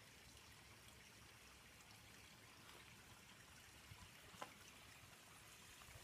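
Faint trickle of water running over rocks in a small man-made creek, with a single soft click about four and a half seconds in.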